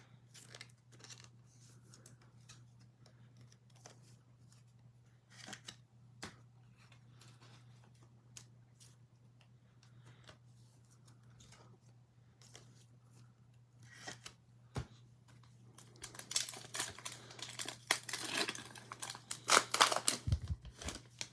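Faint handling clicks, then, from about three-quarters of the way in, a foil trading-card pack being torn open and crinkled, with dense crackling that gets louder toward the end.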